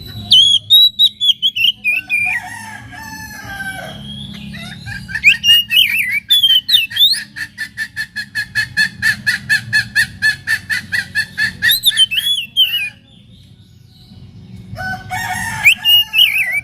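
Oriental magpie-robin (kacer) singing loud whistled phrases, then a fast run of repeated sharp notes, about four to five a second, for some seven seconds. After a short pause the whistling starts again near the end.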